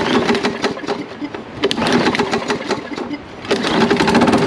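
Briggs & Stratton 500e single-cylinder lawn mower engine pull-started on carburettor cleaner, firing in three short bursts of rapid clattering knocks. The knock is the noise the owner suspects of something banging down below.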